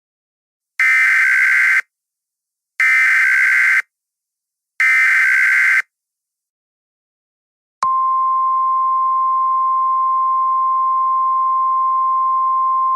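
Emergency Alert System SAME header: three one-second bursts of warbling digital data tones, a second apart. About three seconds later comes the long, steady, single-pitch 1050 Hz Weather Radio alert tone that announces an emergency message.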